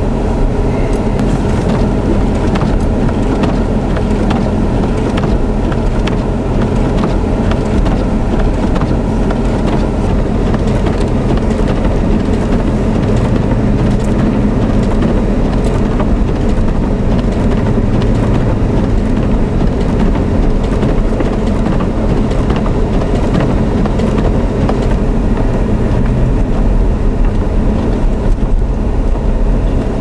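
A vehicle heard from inside the cab, driving on a snowy road: a steady engine hum with road and wind noise, and scattered light clicks.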